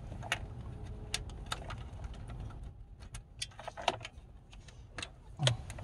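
Plastic wiring-harness connectors and loose cables clicking and rattling as they are handled, a dozen or so irregular sharp clicks over a low steady rumble.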